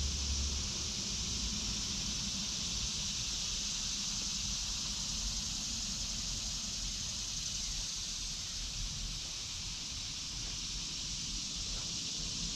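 Steady high-pitched drone of a chorus of cicadas ("locusts"), with a low rumble underneath.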